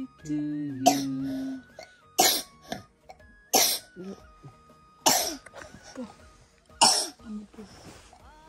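A person coughing five times: single, sharp coughs about a second and a half apart, over faint background music.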